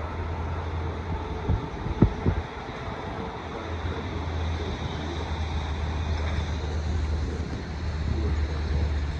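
Low steady rumble of a train approaching along the track, with three sharp knocks about one and a half to two and a half seconds in.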